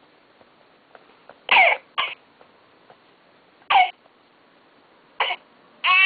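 Electronic infant simulator doll coughing four short times, each cough separate, then starting to cry at the very end, with a falling wail.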